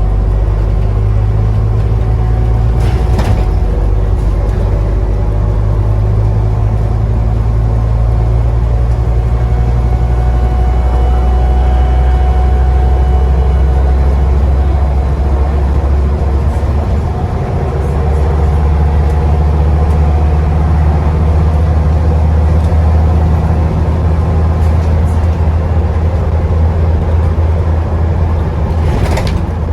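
Scania Enviro 400 double-decker bus heard from the lower deck, its diesel engine droning under way with a faint turbo whistle. The engine note shifts in pitch about ten seconds in and again near eighteen seconds, with a short knock about three seconds in and another near the end.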